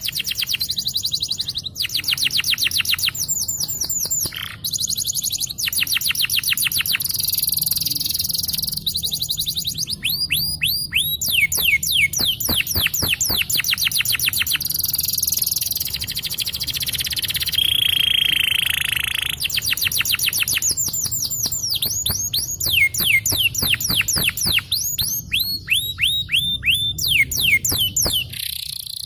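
Domestic canary singing a long rolling song: fast runs of repeated downward-sweeping high notes, the runs changing speed from phrase to phrase, with a short steady whistled note a little past the middle.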